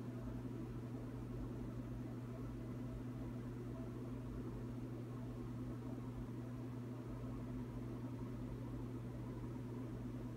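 Reef aquarium equipment running: a steady low electrical hum with a soft hiss of circulating water, unchanging throughout.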